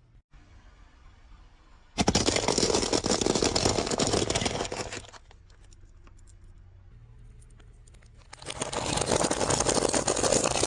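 Coke bottles or cans bursting and crackling as a car runs over them, played backwards: two loud crackling, crunching stretches, the first starting abruptly a couple of seconds in and trailing off, the second swelling up and cutting off sharply near the end.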